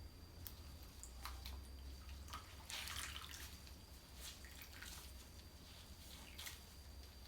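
Cold water splashing and dripping in a basin as a washcloth is dipped and wrung out: several small drips and splashes, with a longer splash about three seconds in.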